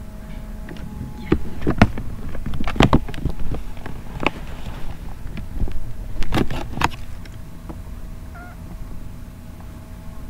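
Irregular sharp knocks and clicks, bunched about two to three seconds in and again around six to seven seconds, over a faint steady hum.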